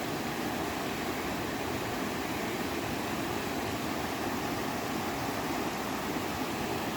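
Steady rushing noise of flowing water, even throughout with no distinct events.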